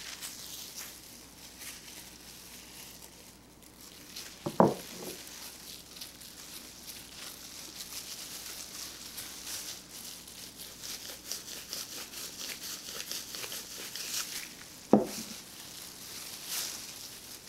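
Clear plastic food-prep glove crinkling and squishing as a hand rubs a creamy paste over a raw ribeye steak, a steady run of fine crackles. Two dull knocks stand out, one about four and a half seconds in and one about fifteen seconds in.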